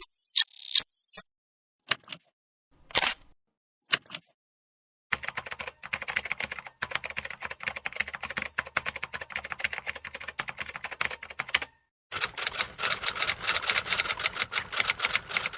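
A few separate sharp clicks, then about six seconds of rapid, dense typing clatter, a brief pause, and a second run of rapid typing clatter.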